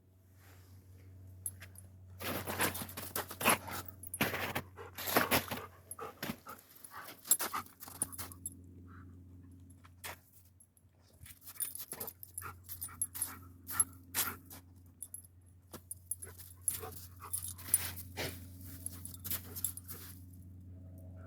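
A dog panting in irregular short bursts over a steady low hum.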